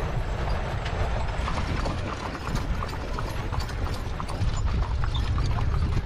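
Hooves of a two-mule wagon team clip-clopping at a walk on a paved road, irregular overlapping steps, over a steady low rumble.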